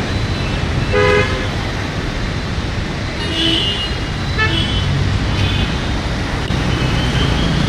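Road traffic with a steady low rumble of passing vehicles, and vehicle horns sounding in short honks about a second in and several more times in the middle.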